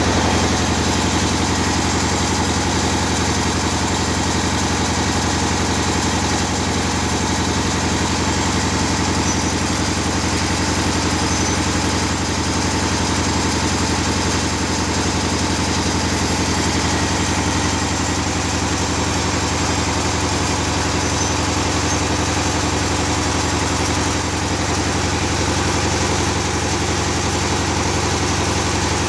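A motor or engine running steadily at a constant speed with a steady low hum.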